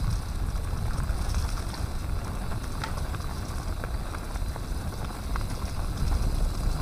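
Mountain bike rolling along a leaf-covered dirt trail: steady wind buffeting the rider's camera microphone, over tyre noise on the dirt and scattered light clicks and rattles from the bike.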